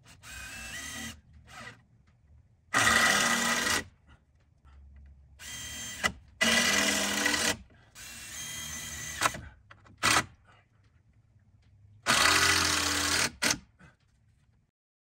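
Power drill running in about seven short bursts, each about a second long, some louder than others; in the first burst the pitch steps up as the drill speeds up.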